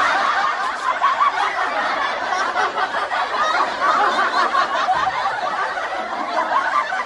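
Laughter sound effect: a dense stretch of snickering, chuckling laughter that runs on without a break and fades out at the end.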